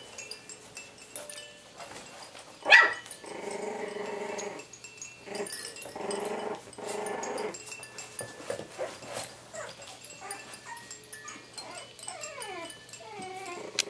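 Coton de Tulear puppies, about three and a half weeks old, growling as they play-fight, with one sharp loud yelp about three seconds in and a few falling whines near the end.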